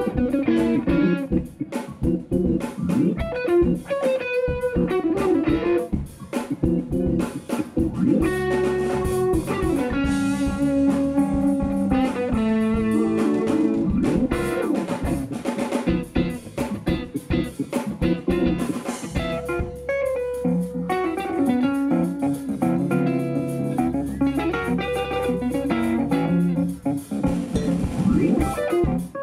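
A live instrumental jazz-funk band plays: electric guitar over keyboards, bass guitar and drums.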